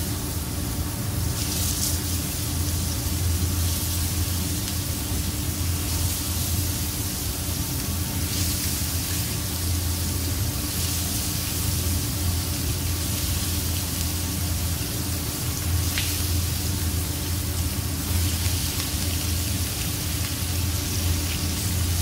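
Marinated fish fillets sizzling in hot oil on a flat tawa griddle as more pieces are laid down, the hiss swelling now and then, over a steady low hum.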